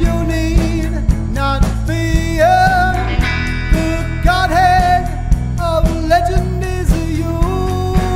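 Rock band playing: a sustained lead line of bending notes over bass and drums beating about twice a second.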